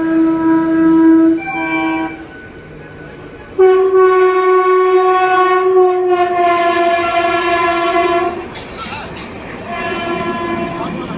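Indian Railways train horns sounding at a station. A held blast stops about a second and a half in and is followed by a short blast. After a brief pause comes a long, louder blast of about five seconds that drops a little in pitch midway, as a passing train does, and a fainter blast sounds near the end.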